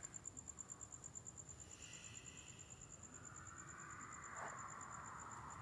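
Faint night ambience: a cricket chirping in a steady, rapid high-pitched pulse, about ten pulses a second.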